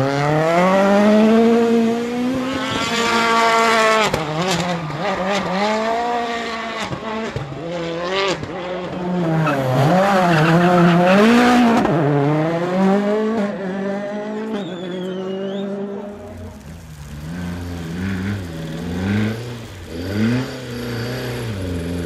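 Rally car engines at full throttle, revving up and falling back repeatedly through gear changes as cars pass on a stage. Softer and lower-pitched from about two-thirds of the way through.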